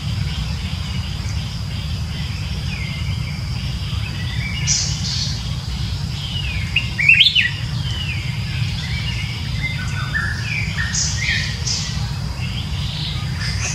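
Birds chirping in short scattered calls, with a louder burst of quick rising and falling squeaks about halfway through. Under them run a steady high-pitched whine and a low rumble.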